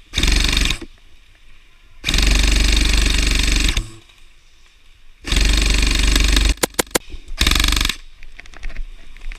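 Airsoft electric rifle (AEG) firing full-auto bursts, its gearbox rattling: a short burst, a long burst of nearly two seconds, another burst, then four quick single shots and a final short burst.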